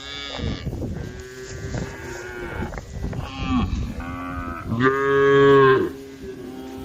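Several cows mooing in overlapping calls, one after another; the loudest is a long moo about five seconds in.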